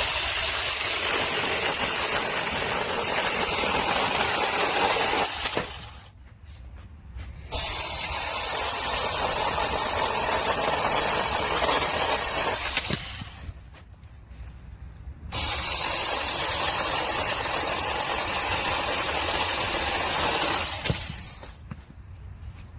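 Tomyvic 21-volt cordless mini chainsaw running in three bursts of about six seconds each, cutting wood with a steady high whine. Each burst starts abruptly and winds down as the trigger is released.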